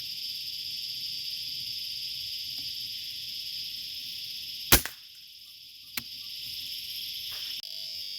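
Cicadas droning steadily in a high band, cut across about halfway through by one sharp shot from a Fox SR1000 rifle. The drone drops away for about a second after the shot, and a smaller click follows about a second after it.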